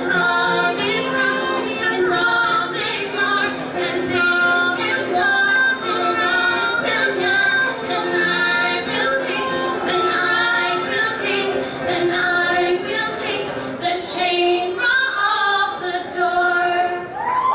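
Three female voices singing a song in close harmony, accompanied by an acoustic guitar. The low sustained accompaniment drops away a few seconds before the end, leaving the voices thinner.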